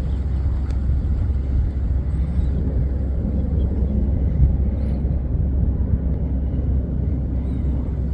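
Strong wind buffeting the microphone outdoors: a loud, steady low rumble with no distinct events.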